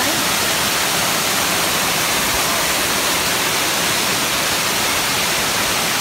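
Waterfall pouring over rocks into a pool: a steady, even rush of falling water.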